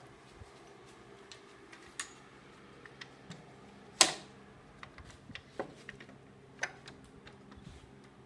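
Irregular clicks and knocks of a bar clamp being fitted and tightened on a glued wooden toolbox, with one sharp knock about four seconds in the loudest.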